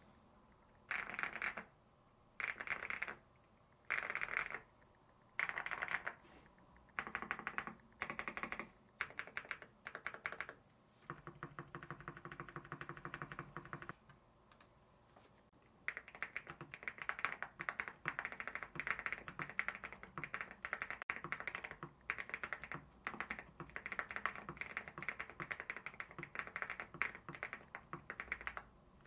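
Typing on a mechanical keyboard fitted with Akko Creamy switches: short flurries of rapid keystrokes about every second and a half, then fast continuous typing from about halfway through.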